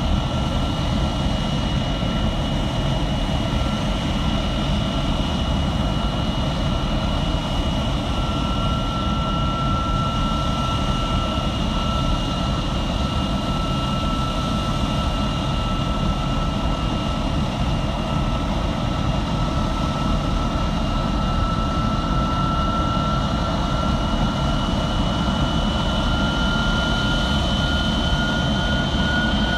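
MiG-17PF's Klimov VK-1F turbojet running steadily on the ground, a constant rush of engine noise with a high turbine whine that creeps slowly upward in pitch over the last several seconds.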